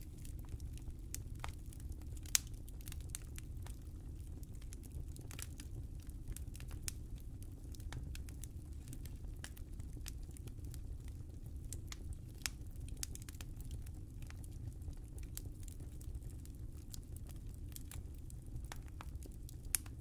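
Wood fire burning in a fireplace: a steady low rumble of flame with scattered small crackles throughout, and a sharper pop about two seconds in and another near the end.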